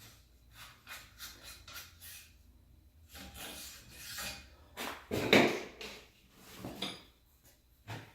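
Hands-on handling noises: scattered knocks, clinks and rubbing as a bungee cord is hooked around the rear of the bike, with the loudest knock about five seconds in.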